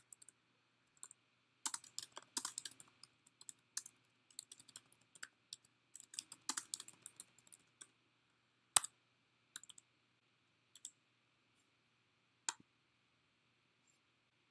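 Typing on a computer keyboard, a quick run of key clicks, then a handful of separate clicks, the loudest a little past halfway.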